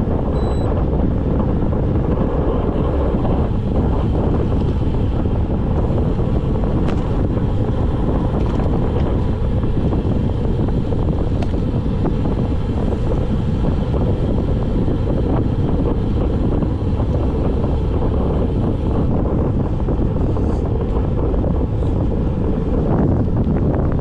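Loud, steady wind buffeting the microphone of a handlebar-mounted camera on a road bike coasting downhill, the rush of air from the bike's speed, heaviest in the low end.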